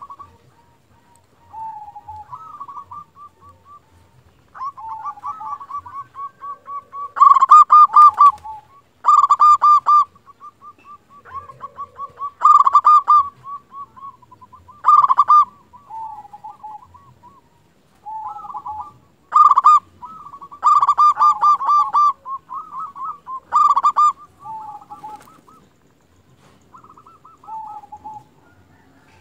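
Zebra dove (perkutut) cooing: repeated phrases of quick, pulsing coo notes, some phrases much louder than the others, with short pauses in between. This is a perkutut in full song, the kind of recording used as a lure to get other perkutut to answer.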